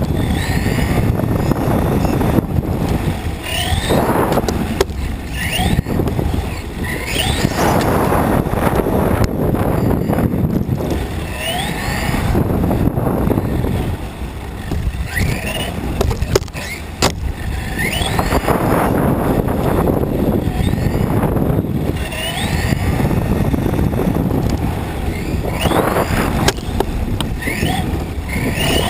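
Onboard sound of a Tamiya TA-05 radio-controlled touring car being driven: a heavy, steady rumble of tyres and wind on the mounted camera, with the electric motor's whine rising again and again as the car accelerates.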